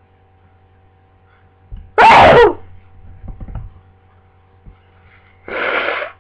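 A person with the flu sneezing once, very loudly, about two seconds in, with a quick intake of breath just before. A shorter, softer sneeze-like burst follows near the end.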